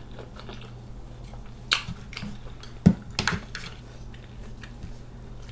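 Metal knife and fork clinking and scraping on a metal serving tray while cutting a waffle: several sharp clinks, the loudest about three seconds in.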